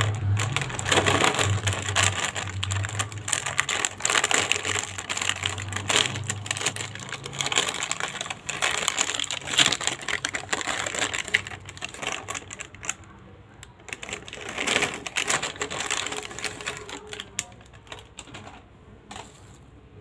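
Foil-lined plastic snack packet crinkling and rustling as it is handled and torn open, a dense crackle that grows fainter and sparser over the last several seconds.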